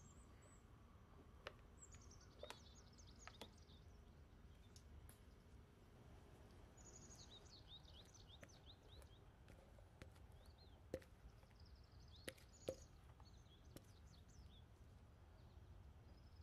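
Faint birds chirping over quiet room tone, in scattered runs of short high chirps, with a few soft clicks about two-thirds of the way through.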